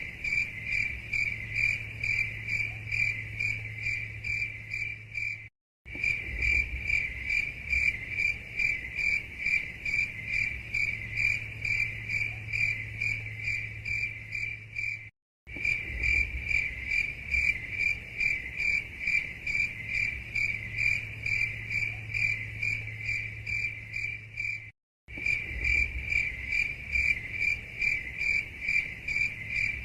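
Cricket chirping in a fast, even train of high-pitched pulses, about four a second, over a faint low hum. The sound cuts out briefly three times, about ten seconds apart.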